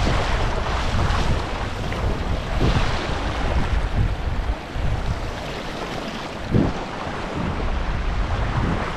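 Spring snowmelt runoff water rushing and splashing steadily, with wind buffeting the microphone in low rumbles.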